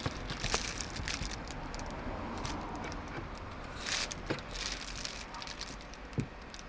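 Handling of an EV charging cable and its plastic connector: scattered clicks, rattles and rustling as it is moved about, with a sharp knock near the end.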